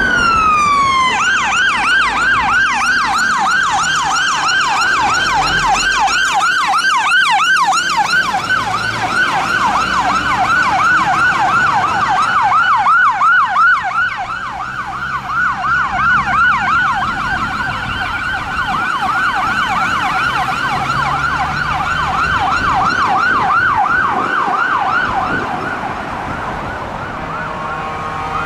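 Scania fire engine's electronic siren: a slow wail falls away about a second in and switches to a fast yelp, sweeping up and down about three times a second. The yelp grows fainter as the fire engine drives off.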